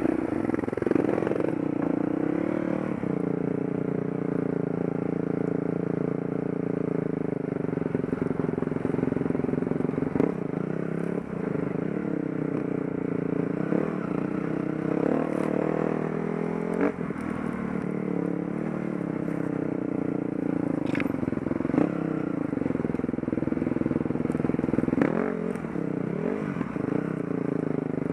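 Enduro motorcycle engine running under way on a rough dirt trail, its pitch rising and falling with the throttle, with scattered knocks and clatter from the bike over the ground.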